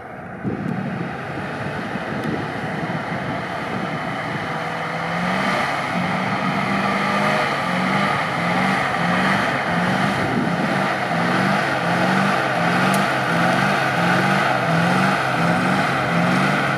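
GAZ-66 truck's engine pulling under load up a snowy rutted slope, growing louder as the truck comes closer. From about five seconds in, its note wavers up and down in a steady rhythm, a little faster than once a second.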